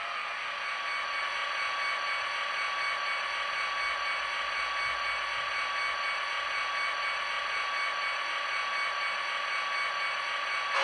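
HO-scale Athearn Genesis SD45-2 model locomotive's sound decoder playing a diesel engine at steady idle through its small onboard speaker, a tinny, even rumble with a faint steady whine.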